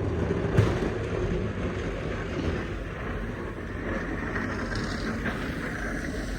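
Snowplow truck going along the road: a steady engine rumble and the hiss of its blade scraping the road surface, with one sharp knock about half a second in.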